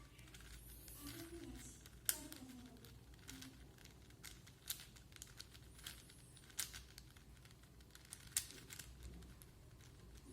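Plastic 4x4 Rubik's cube being turned by hand: irregular clicks and clacks of its layers snapping round, the sharpest about two seconds in, near the middle and near the end.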